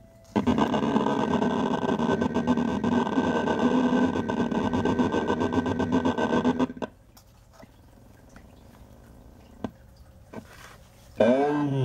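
Circuit-bent Fisher-Price Junior Asparagus Bedtime Buddy toy's sound chip putting out a glitching, distorted drone full of rapid clicks, which cuts off suddenly after about six and a half seconds. Scattered faint clicks follow, and near the end a warped sound with swooping pitch bends starts up.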